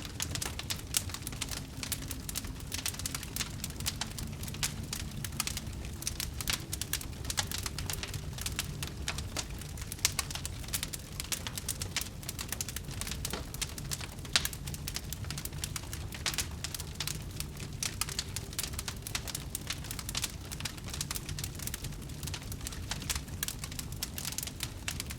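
Fire crackling: a dense, irregular stream of sharp pops over a steady low rumble of flames, with a few louder pops standing out.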